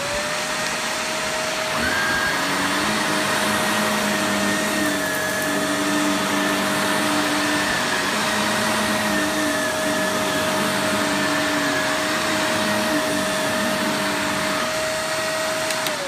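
Shark Navigator Lift-Away upright vacuum cleaner running over a rug: a loud, steady motor whine, with a second, higher whine joining about two seconds in. The motor starts to wind down at the very end.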